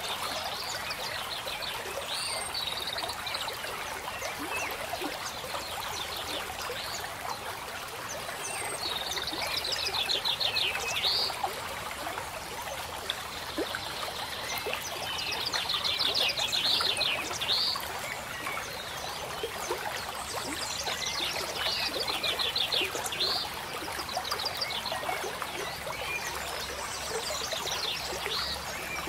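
Steady trickle of running water, like a small stream. Over it, a high rapid trilling call and short high whistled notes come back every few seconds.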